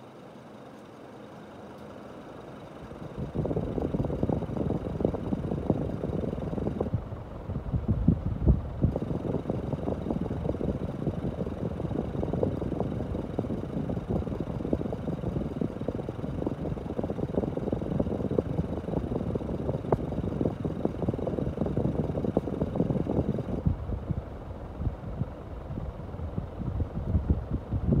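SMC Laguna 36-inch ceiling fan running, a low, uneven rushing noise that gets markedly louder about three seconds in and then holds.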